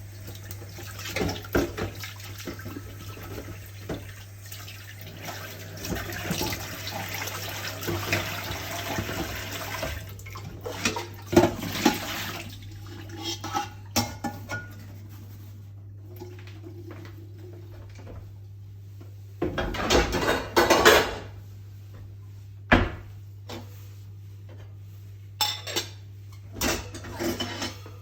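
Dishes being washed at a kitchen sink: tap water running with dishes clinking for about the first ten seconds, then the water stops and scattered clinks and knocks of dishes follow, with a brief rush of water or scrubbing about twenty seconds in. A low steady hum runs underneath.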